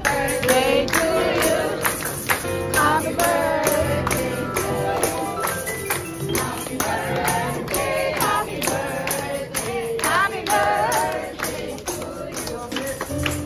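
A group singing a birthday song to a steady beat of tambourine jingles and hand claps, about two to three strokes a second.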